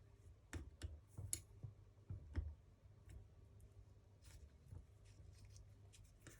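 Faint, scattered clicks and light taps of a metal hand tool against the small metal parts of a nitro RC engine as the tool is lined up, with quiet room tone between.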